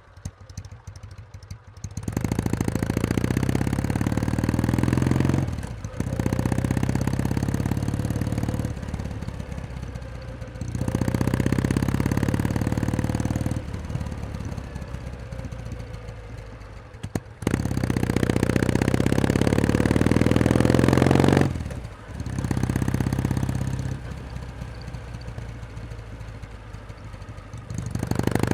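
Kawasaki W1S vertical-twin motorcycle engine idling, the sound swelling louder and dropping back several times.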